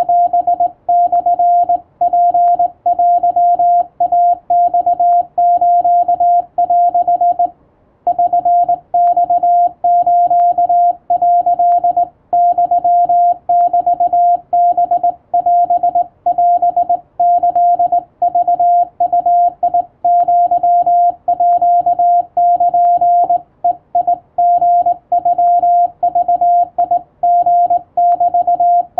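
Japanese (wabun) Morse code sent by hand on a straight telegraph key: a single steady tone keyed on and off in quick dots and dashes, with one brief break about eight seconds in.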